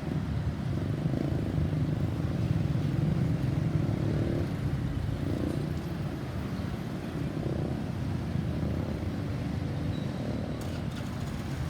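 Road traffic: vehicle engines running and passing in a steady low rumble, a little louder a few seconds in.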